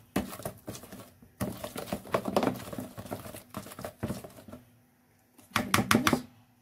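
Wooden hand whisk beating thick chocolate cake batter in a bowl: a fast run of wet slapping strokes that stops about four and a half seconds in. A few louder sharp knocks follow near the end.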